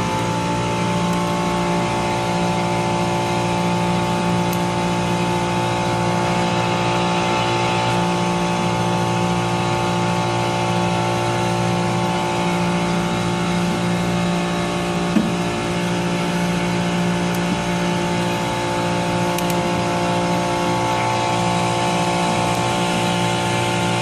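Trane chiller's compressor running with a steady hum made of several constant tones, drawing normal current under load.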